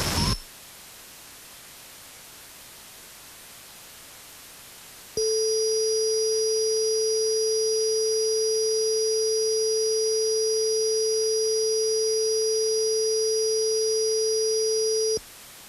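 A steady single electronic tone starts abruptly about five seconds in, holds unchanged for about ten seconds and then cuts off. It sits over a faint static hiss. Loud static cuts out just at the start.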